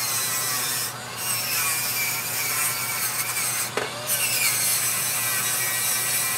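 Small rotary tool running with an abrasive wheel rubbing against carved wood, smoothing away a seam. It is a steady hiss over the motor's hum, broken by two brief dips, about a second in and near four seconds, where the wheel lifts off the wood.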